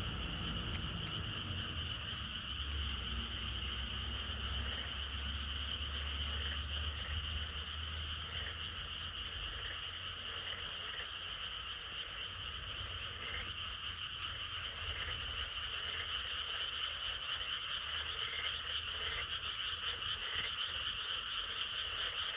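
A dense chorus of frogs croaking continuously, with a steady high-pitched trill running underneath.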